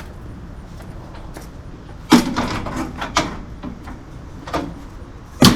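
A loud bang about two seconds in, followed by a few lighter knocks and clatter, and another sharp bang near the end, over a low steady rumble.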